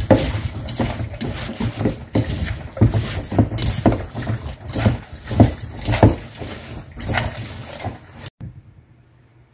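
Bare hands tossing and squeezing a seasoned chive and onion salad in a stainless-steel bowl: a busy run of wet rustling and squishing that stops abruptly near the end.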